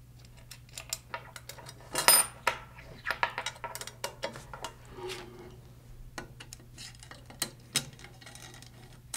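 Small metal hardware clicking and clinking against a perforated aluminium robot channel as hub mounts and hex screws are fitted by hand, with a louder ringing clink about two seconds in.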